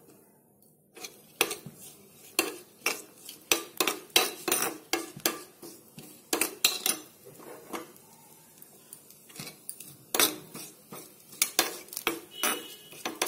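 Steel spoon clinking and scraping against a small black kadai while stirring dry coconut slices frying in ghee. The clinks start about a second in and come irregularly, a couple a second.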